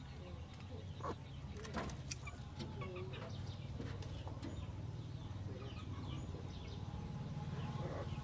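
Chickens clucking faintly, scattered short calls over a steady low hum, with a few light clicks in the first couple of seconds.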